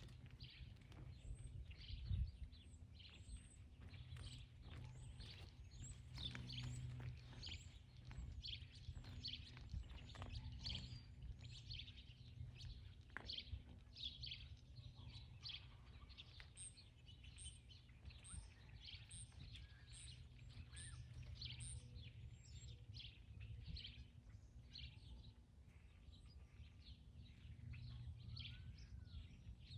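Faint outdoor ambience of many small birds chirping, including a run of high, evenly spaced chirps in the middle, over a low steady rumble, with one brief low thump about two seconds in.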